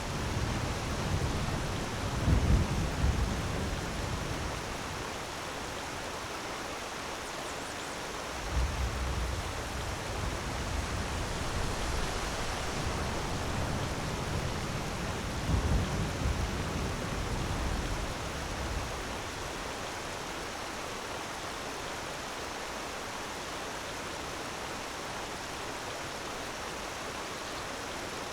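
Waterfall rushing in a steady, even hiss. Deeper, louder low swells come in around 2, 9 and 16 seconds in, then settle back.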